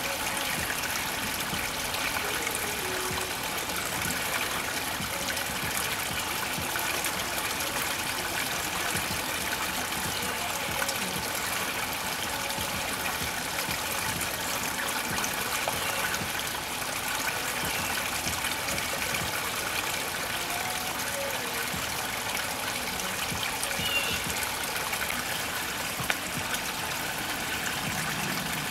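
Water trickling steadily through a shallow, rocky pool.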